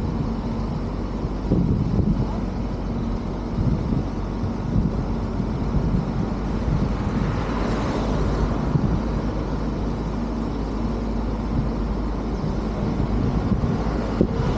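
Car driving along a road, heard from a microphone on its roof: steady wind rush and road rumble, with an oncoming car passing by about eight seconds in.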